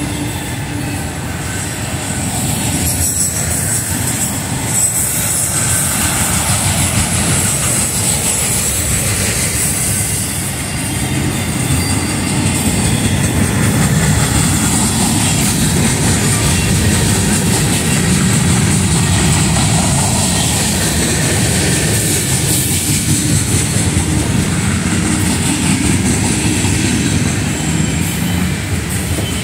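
Freight cars rolling past at trackside: a steady rumble of steel wheels on rail, with clickety-clack over the rail joints and a thin, high-pitched wheel squeal running through it.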